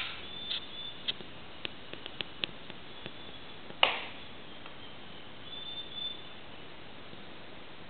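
Scattered small sharp clicks over a steady background hiss, the loudest a single click about four seconds in, with faint high-pitched chirps now and then.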